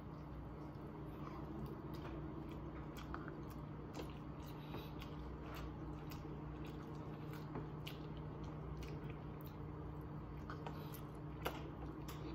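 A person chewing chicken with scattered small mouth clicks and smacks, pulling meat off a whole chicken by hand, over a steady low hum.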